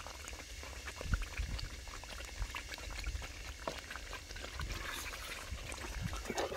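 Thick poppy-seed halwa sizzling and crackling in ghee in an aluminium pot as a wooden spatula stirs and scrapes through it, a steady scatter of small pops. The milk has almost cooked off and the ghee is starting to separate, the last stage before the halwa is done.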